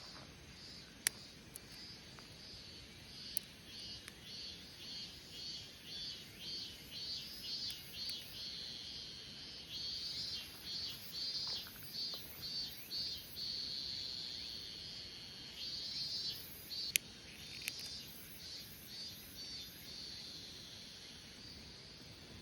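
An insect calling in rhythmic high-pitched pulses, about two a second, that build up, merge into one continuous trill for a moment about two-thirds through, then break back into pulses. A few single sharp clicks sound over it.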